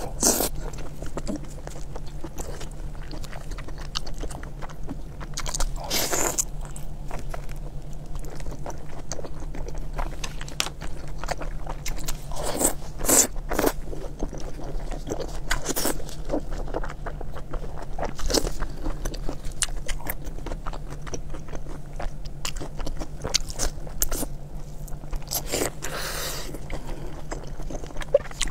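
Close-miked chewing and biting of sauce-glazed tied intestine rolls (kun chang): wet mouth clicks and smacks throughout, with a few louder bites around 6 s, 13 s and 26 s in. A steady low hum runs underneath.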